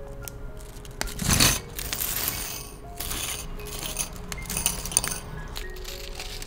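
Small gold-tone metal jewelry findings (jump rings, head pins, ear wires) poured from a plastic bag, clinking and tinkling onto a glazed ceramic dish in several short bursts, the loudest about a second and a half in.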